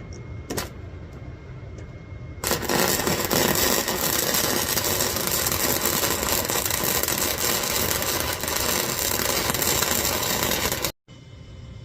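Harbor Freight wire-feed welder's arc crackling steadily, starting about two and a half seconds in and cutting off abruptly near the end. Before it there are a few faint clicks.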